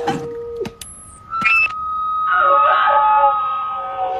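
Microphone feedback through a loudspeaker: a steady whistling tone that jumps to a higher pitch just under a second in and holds, with a few sharp clicks. From about two seconds in a louder, noisier swell with wavering lower tones joins it.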